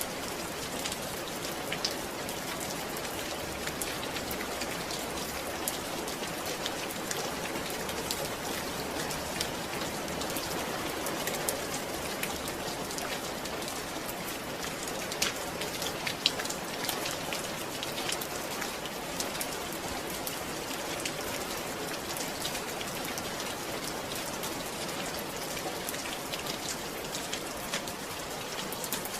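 Steady rain falling: an even hiss full of separate drop hits, with a couple of louder drops about halfway through.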